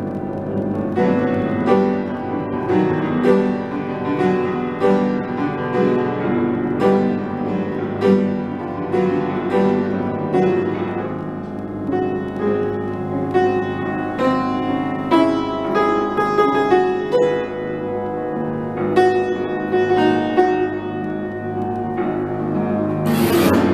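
Piano with struck pot lids tuned to G and F sharp, playing a rhythmic passage of sharp ringing strokes a little under a second apart. A short, bright, noisy burst comes near the end.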